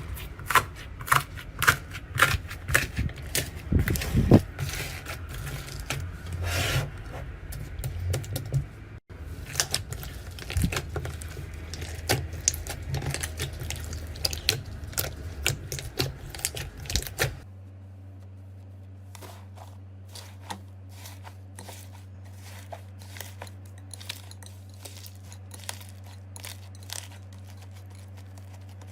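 Close-miked crackling and clicking from material being handled for ASMR, many sharp clicks a second, in three stretches split by cuts, the last over a steady low hum.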